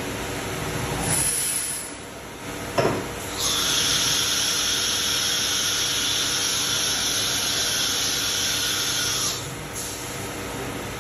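CNC router spindle running and its bit cutting wood. A sharp click comes a little under three seconds in, then a loud, steady high-pitched cutting hiss from about three and a half seconds in, which drops away near the end.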